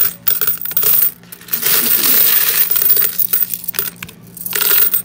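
Handfuls of Roosevelt dimes poured and sifted back into a plastic bucket heaped with coins, a dense jingling clatter of coin on coin. It comes in waves, with the longest pour in the middle, a short lull, and another pour near the end.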